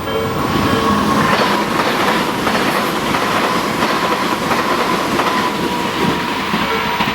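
Tobu Nikko Line electric train passing over a level crossing: wheels clack over the rail joints amid loud rail noise, with a steady whine that falls slightly in pitch. The crossing's warning bell rings about twice a second underneath and is heard clearly again near the end.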